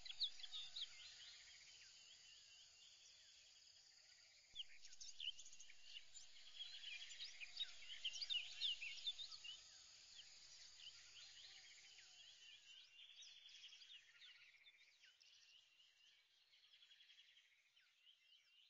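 Faint chorus of many birds chirping, with insect-like trills underneath, growing fainter toward the end.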